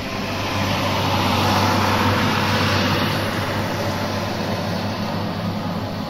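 John Deere 6910 tractor's six-cylinder diesel engine working under load while pulling a plough past, over a steady rushing noise. It grows louder about a second in and eases off after about three seconds.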